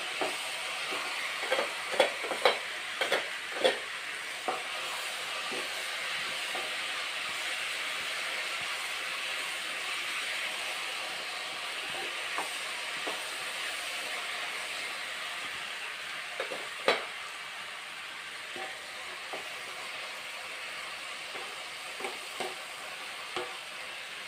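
Chicken biryani masala frying and sizzling steadily in a kadai while a spatula stirs it. The spatula knocks and scrapes against the pan several times in the first four seconds, and once sharply about seventeen seconds in.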